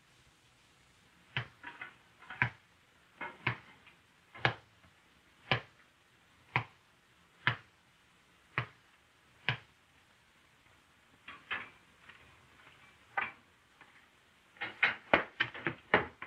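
A series of sharp knocks and clicks: a few close together, then a steady run of about one a second, then a quick cluster near the end.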